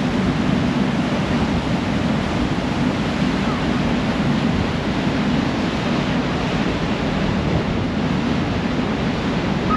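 Steady rush of a harbour ferry's churning wake and wind buffeting the microphone, over the low drone of the ferry's engine.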